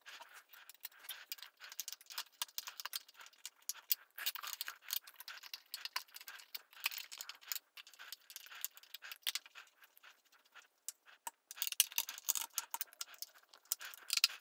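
Faint, irregular small clicks and rattles of a Phillips screwdriver turning the screws that hold a Celestron dew heater ring onto a telescope's front cell, with the ring shifting under the hands. The clicking thins out for a moment past the middle, then picks up again, busier, near the end.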